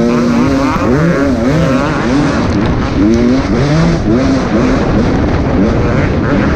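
On-board sound of an off-road racing dirt bike's engine under race load. Its pitch climbs and drops over and over, a fresh rise roughly every half second to a second, as the throttle is worked and gears change.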